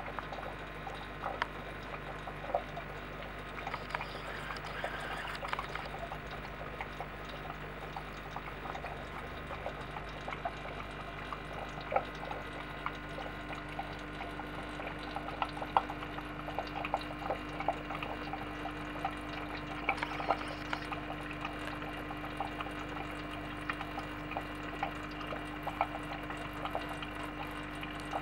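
Aquarium water bubbling and trickling, with many small drips and pops over a steady low hum that grows a little stronger about halfway through.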